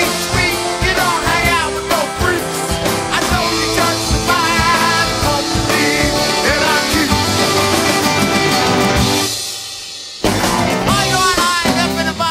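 Rock band playing a song, with a wavering melodic lead over a drum and bass beat. About nine seconds in the band drops away and fades for a moment, then comes back in all at once.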